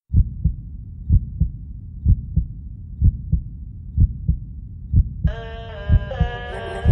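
Heartbeat sound effect: pairs of low thumps, about one pair a second. About five seconds in, held musical chords come in over it.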